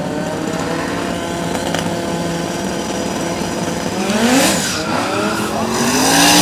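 Drag-race car engines idling at the starting line, then revved hard in quick rises and falls of pitch about four seconds in and again near the end, the second burst the loudest, with a hiss that may be tyre noise.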